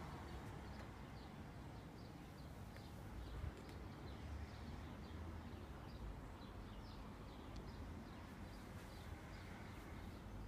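Faint outdoor ambience: small birds chirping over and over in the background, a few chirps a second, over a low steady rumble.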